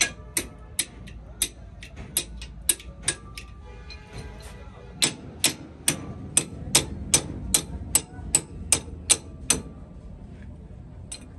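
Hammer blows on metal: a run of sharp strikes, a short pause, then a steadier run of about three strikes a second that stops near the end.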